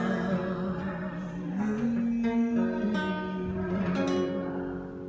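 A man singing held, wavering notes over a nylon-string classical guitar's plucked and strummed accompaniment; the music fades out about four and a half seconds in as the song ends.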